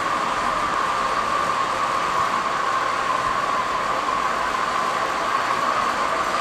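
Steady hiss with a constant high-pitched hum underneath, even and unchanging: continuous background noise.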